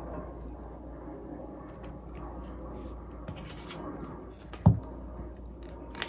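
Light handling sounds of small scrapes and rubs, with one sharp knock about three-quarters of the way through as a flashlight is set down on a tabletop.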